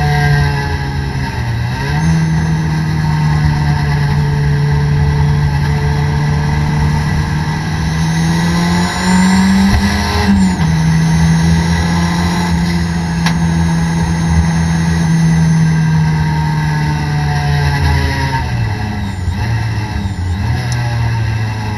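Toyota Corolla race car's four-cylinder engine, heard from inside the cabin, running at mostly steady revs. The pitch dips and recovers about two seconds in, climbs briefly around the middle, and shifts down again near the end.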